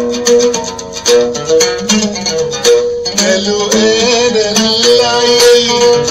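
Oud playing a fast run of plucked notes in an Arabic melody. About halfway through, a wavering held tone joins in above it.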